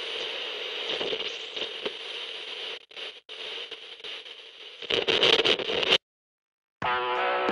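Crackling, hissing static-like noise that cuts off suddenly about six seconds in; after a brief silence, music with plucked-guitar notes starts just before the end.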